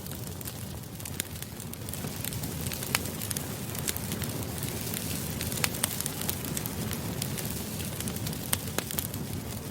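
Campfire burning with a steady low rumble and frequent sharp crackles, a few louder pops among them.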